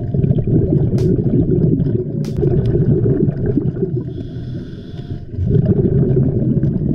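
Scuba diver breathing through a regulator underwater: a low rumble of exhaled bubbles, a fainter hiss of an inhalation about four seconds in, then bubbles again. A couple of sharp clicks come early on.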